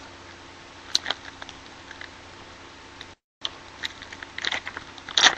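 Trading card packaging being opened and handled: a few scattered clicks and taps, then a run of crinkling, rustling and clicking that picks up in the last second or so. The audio drops out completely for a moment a little past halfway.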